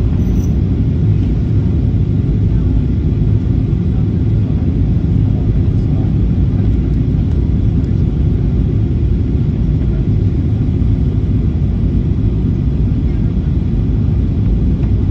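Steady low rumble of a Boeing 737-800's cabin on descent to land, heard from a window seat over the wing: the CFM56 engines and the airflow over the fuselage.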